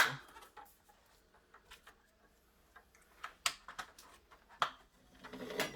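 Clicks and light taps of window-blind mounting hardware being handled and fitted: one sharp click right at the start, a few lighter clicks about three and a half and four and a half seconds in, and a short rustle near the end.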